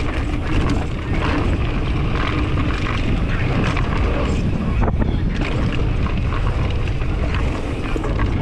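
Wind rushing over the microphone of a mountain bike ridden fast down a dirt trail, with tyre noise on the dirt and short rattles and knocks from the bike throughout.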